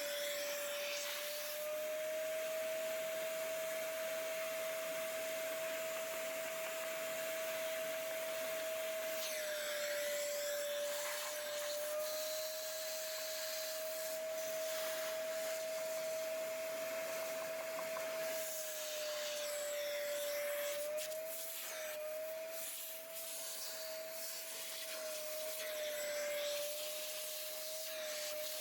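Shop vac running, its motor whine holding a steady pitch that dips and wavers at times, with a hiss of rushing air as it sucks trapped debris and grit out of a dishwasher part.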